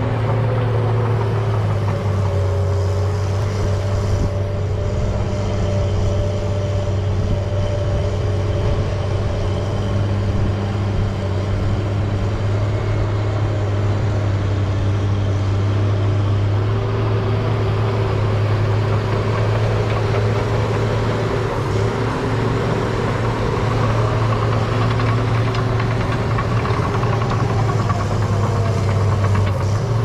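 Heavy-equipment diesel engine running steadily at a low idle: a deep, constant hum with a few fainter tones above it that shift slightly in pitch now and then.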